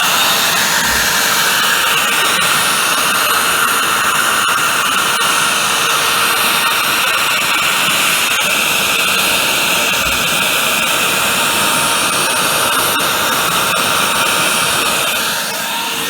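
CNC router spindle milling aluminium sheet: a loud, steady noise with a whine whose pitch drifts as the cut moves, easing off slightly near the end.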